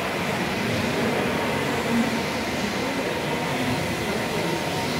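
Floor-scrubbing machine running with a steady mechanical drone.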